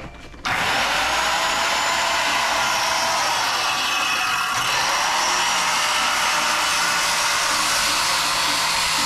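Electric circular saw starting up about half a second in and running steadily as it cuts a slot into a wooden board.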